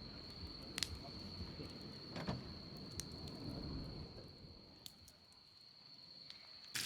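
An insect calling with one steady, unbroken high-pitched tone over a faint low rumble, with a few light clicks; it cuts off abruptly just before the end.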